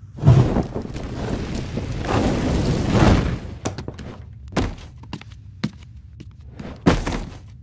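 A thud, then a rushing noise that swells for about three seconds and stops. Then heavy footsteps from a barefoot walker: about six thuds, roughly half a second to a second apart.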